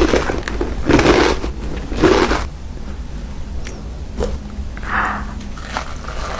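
Crunchy food bitten and chewed close to the microphone: three loud crunches in the first two and a half seconds, then quieter chewing with small mouth clicks.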